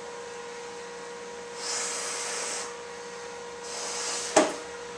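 Breath blown into a rubber balloon to inflate it: two long, airy puffs, the second ending in a sharp click about four seconds in. A faint steady electrical hum runs underneath.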